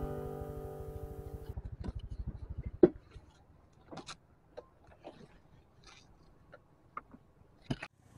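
Motorcycle engine idling with a fast, even pulse, then cut off with a sharp click about three seconds in. After that come a few scattered light clicks and rustles.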